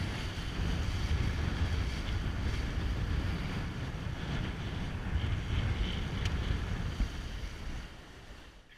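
Wind buffeting the microphone over the rush and splash of water along the hull of a Mirror dinghy sailing fast in a fresh breeze, easing off near the end.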